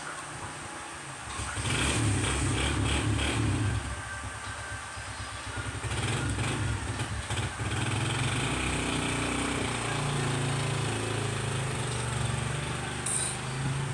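An engine running with a low steady hum that swells about a second in, dips briefly, then carries on steadily.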